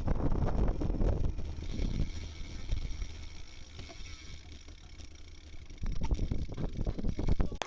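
Riding noise picked up by a dashcam microphone: low road and engine rumble with wind buffeting. It eases off about halfway through, picks up again near the end, then cuts off abruptly.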